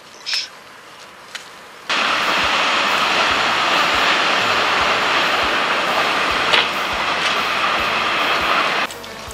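A train running past on the rails, a dense noise with a rhythmic clack of wheels over the rail joints, about two a second. It starts suddenly about two seconds in and cuts off shortly before the end.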